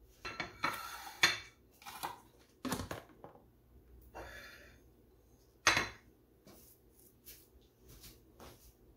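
Ceramic soup bowls and saucers being set down on a stone countertop, with a plastic container lid being moved: a series of clinks and knocks with a short scrape, the loudest knock about two-thirds of the way through.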